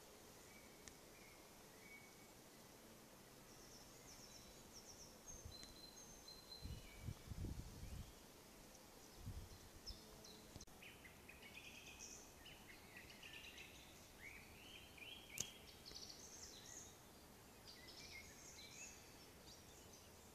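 Faint birdsong from several small birds: scattered high chirps and short trills, busier in the second half. Two dull low bumps come about a third and halfway in, and a single sharp click about three quarters of the way through.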